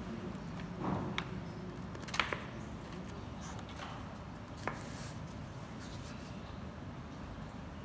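A few light taps and clicks over a steady low hum: hands moving a piece of corrugated cardboard on a table and handling a marker pen.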